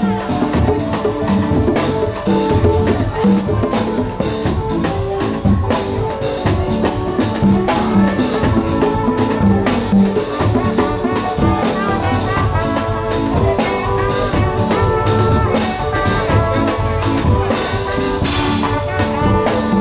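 Live school band playing an upbeat number: congas slapped by hand, with bass guitar, electric guitar and drum kit, under a melody of held notes that moves in steps.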